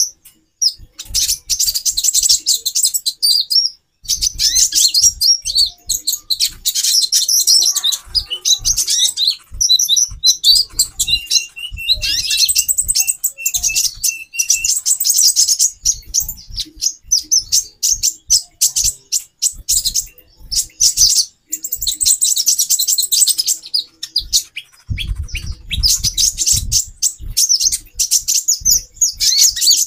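Several female konin (kolibri ninja) sunbirds chirping busily: rapid, high twittering calls with short breaks, and a run of evenly repeated notes about a third of the way in. These female calls are used as a lure to bring male konin into breeding condition. Soft low thumps sound now and then beneath them.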